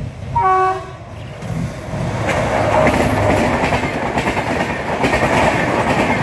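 An Indian Railways WAP7 electric locomotive's horn gives one short blast about half a second in. The Rajdhani Express then rushes past at full speed, its wheel-and-rail noise building from about a second in and staying loud and steady.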